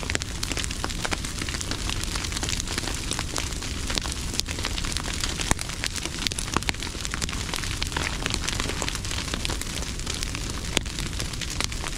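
Dry smut grass burning in a pasture fire, crackling steadily with sharp pops scattered through it over a constant rushing noise.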